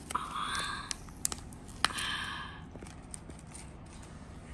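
Paper wrapping being handled and picked at by fingers: crinkling clicks and two longer rustles about a second apart.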